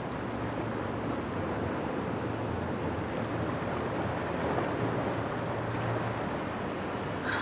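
Sea waves washing steadily, with wind on the microphone and a low steady hum underneath; a brief short high sound near the end.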